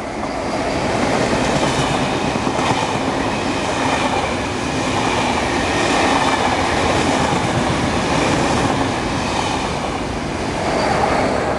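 A fast push-pull KTT through train, led by a Lok 2000 electric locomotive hauling double-deck coaches, running past at speed with a continuous rush of wheels on rail. The sound swells as the locomotive arrives and swells again near the end as the rear Lok 2000 goes by.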